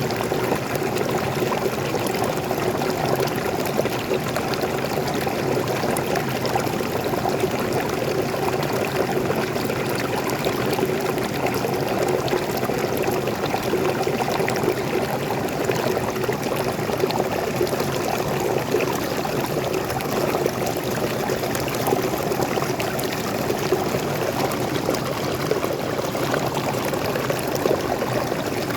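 Small waterfall pouring into a forest stream, a steady rush of falling and flowing water.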